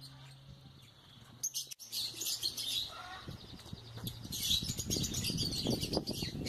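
Flock of small aviary parrots chirping and chattering in high, rapid calls that start about a second and a half in and grow busier toward the end, over a faint steady low hum.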